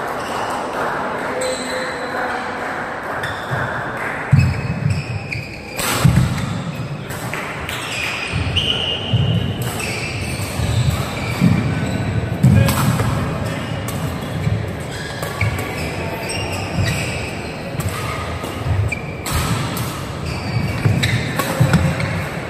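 Badminton singles rally in a reverberant indoor hall: sharp racket strikes on the shuttlecock several times, with thuds of the players' footwork on the court, over background crowd chatter.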